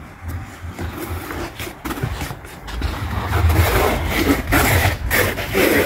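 Inflatable vinyl pool float scraping and rubbing along stone paving as it is dragged, getting louder about halfway through, over a low, uneven rumble.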